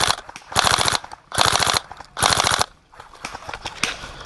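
Airsoft rifle firing short full-auto bursts: four quick rattling bursts in the first two and a half seconds, each under half a second, then only a few faint clicks. The BBs are striking twigs in the way.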